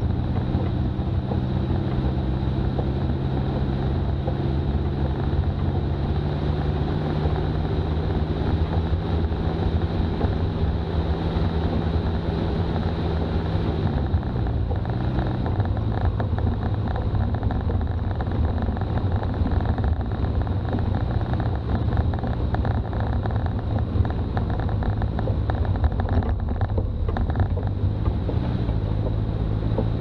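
Toyota BJ40's diesel engine running steadily on the move, with wind and road noise. The engine note dips and shifts about halfway through and again near the end, as the revs change.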